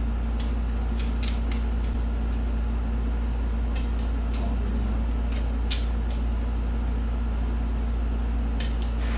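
Light metallic clicks and clinks of hand tools and parts handled during engine assembly, a handful of separate ticks over a few seconds, over a steady low shop hum.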